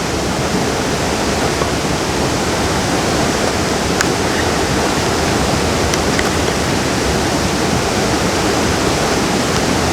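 Steady rushing of a nearby waterfall, even and unbroken, with a single light tick about four seconds in.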